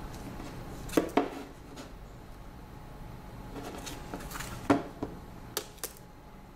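Smartphones being handled on a wooden desk: the metal-bodied HTC One knocking lightly against the larger Huawei Ascend Mate and the desk as it is shifted and lifted off. Two sharp taps come about a second in and three more in the second half, with faint rustling between.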